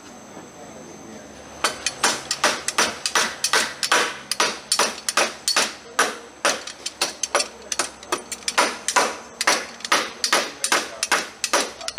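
Hammer nailing down wooden deck planks: a steady run of sharp strikes, about three a second, starting about a second and a half in and stopping just before the end.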